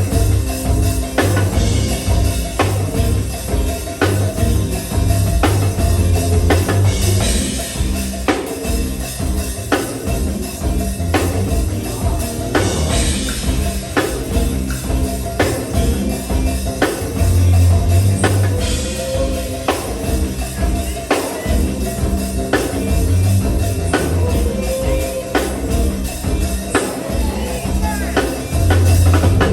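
Live go-go band playing a bounce-beat groove: drum kit and percussion strokes at a steady beat over heavy bass.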